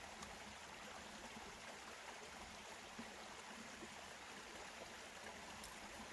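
Faint steady rushing noise, with a few faint clicks, one at the start and one near the end.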